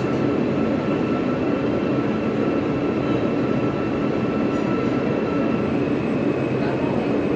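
Alstom R160A subway train running on the rails: a steady, dense rumble and rail noise with two faint steady whines above it, the lower whine fading out near the end.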